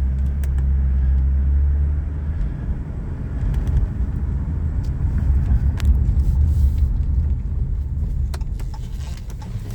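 Car driving slowly, heard from inside the cabin: a low engine and road rumble, steadier for the first couple of seconds and then looser, with a few faint clicks.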